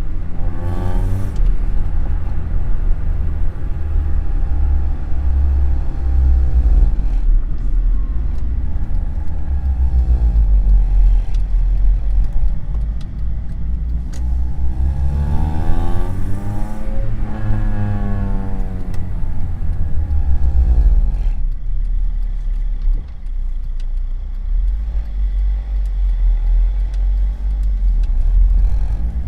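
Honda Civic Type R EP3's 2.0-litre i-VTEC four-cylinder engine revving up and down under a heavy low rumble. Its pitch climbs over the first seven seconds and drops, climbs again to a peak about halfway, and falls away. It then settles to a lower, quieter drone and rises again near the end.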